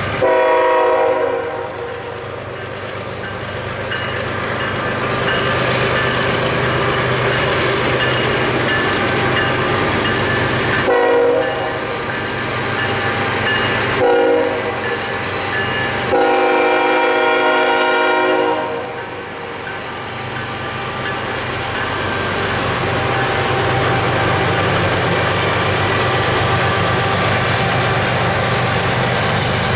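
Norfolk Southern freight train passing: its lead GE locomotive's air horn sounds four times. The first and last blasts are long, with two short blasts about 11 and 14 seconds in. Under the horn run the steady rumble of the diesel locomotives and then the double-stack intermodal cars rolling on the rails.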